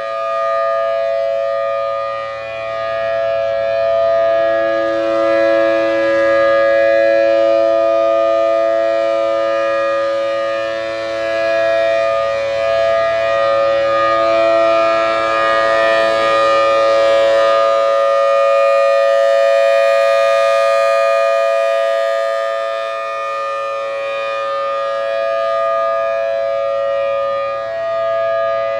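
Federal Signal Thunderbolt 1000T tornado siren sounding its steady full-alert tone, holding one pitch while the level swells and fades slightly as the rotating head sweeps past. It has the raspy edge of its 6M blower.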